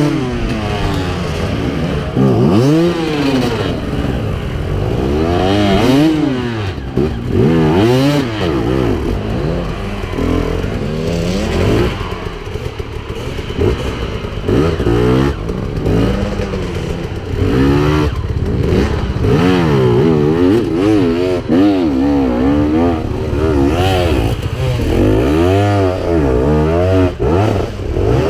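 Enduro dirt bike engine revving up and down again and again as the throttle is worked in short bursts, roughly every second or two.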